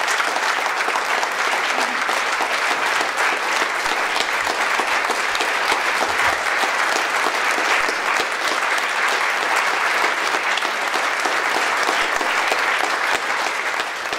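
A large audience clapping together in sustained, steady applause.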